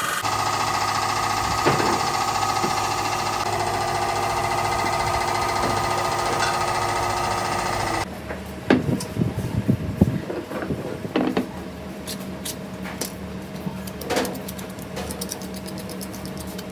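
Steady hum of a running workshop machine for about half the time, then, after an abrupt change, scattered clinks and knocks of painted cast brake cylinder bodies being handled and set down on a wooden workbench, over a fainter steady motor hum.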